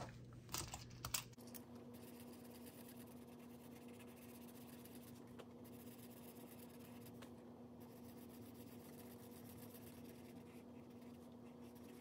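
Near silence: a few soft clicks of cash and paper being handled in the first second or so, then only a faint steady hum of room tone.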